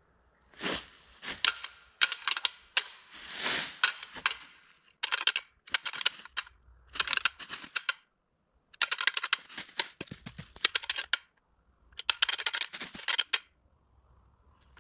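Crisp crunching and crackling rustle with sharp snaps, in about eight short bursts separated by brief quiet gaps.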